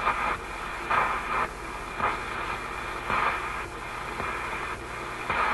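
RCA A25 tube shortwave radio's speaker hissing with static and a low hum, the noise swelling louder in pulses about once a second.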